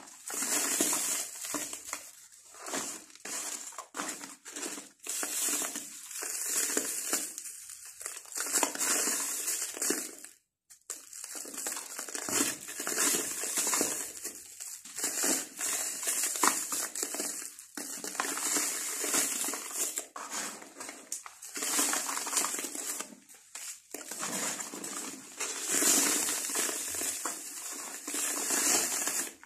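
Dry sand-cement lumps being crumbled and crushed by hand, a gritty crunching that comes in irregular strokes, with a brief break about ten seconds in.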